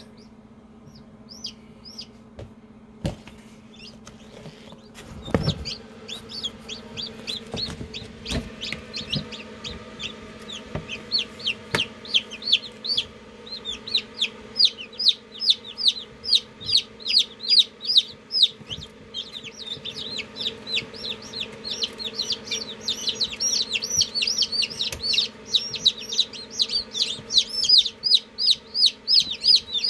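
Newly hatched chicks peeping: rapid, high, downward-sliding peeps, several a second, getting denser and louder from about halfway, over a steady low hum. A few knocks come in the first several seconds.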